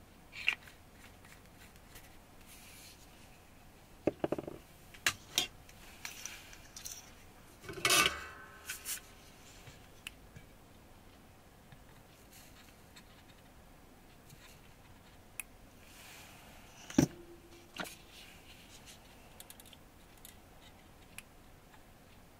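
Sparse clicks, scrapes and rubbing from a small hand tool and fingers working on a guitar pedal's exposed circuit board and metal case. Two louder clinks come about eight and seventeen seconds in.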